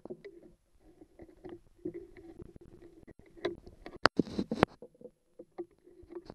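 Small metal clicks and scrapes of hand tools working a pin in the outboard's linkage, with two sharp clicks about four seconds in.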